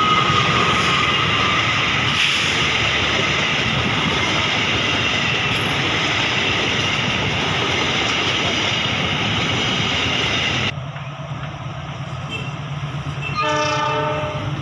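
Diesel-electric locomotive train running past, a loud steady rush of engine and wheels, with the tail of its horn dying away at the start. It changes suddenly to a quieter steady low hum, and about a second before the end a locomotive horn gives a short blast.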